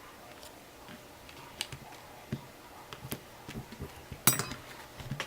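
Scattered small clicks and taps of hands handling the LCD panel assembly and its backlight wire, with one sharper click about four seconds in.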